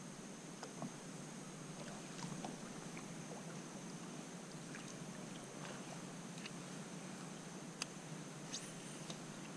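Kayak moving on still water: faint paddle splashes and drips with a few light knocks on the hull, the sharpest near the end, over a steady hiss.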